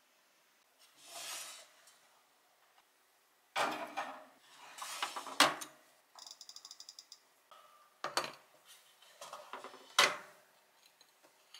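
Kitchen handling noises: knocks and clatter of dishes on a counter, with a quick even run of about a dozen clicks about six seconds in as the Balmuda toaster oven's timer dial is turned. A sharp knock about ten seconds in is the loudest sound.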